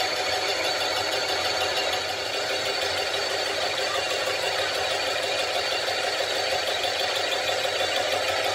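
Lathe running steadily while the cutter spinning on its spindle surfaces the deck of an engine cylinder head clamped on the carriage: a continuous machining drone with a steady high whine.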